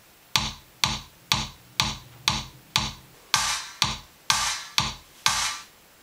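Electronic drum-machine beat: eleven hits at about two per second, each a low kick thump under a bright, snappy top, with three longer, noisier hits in the second half.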